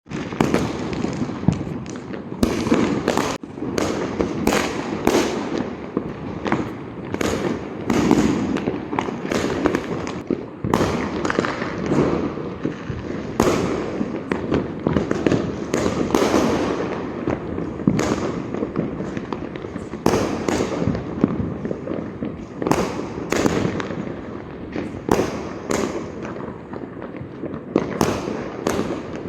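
Diwali fireworks and firecrackers going off continuously, many sharp bangs and pops a second layered over a constant rumble of distant explosions.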